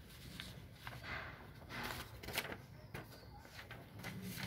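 Sheets of paper being handled and turned over: faint rustles and soft swishes, a few of them about one to two and a half seconds in.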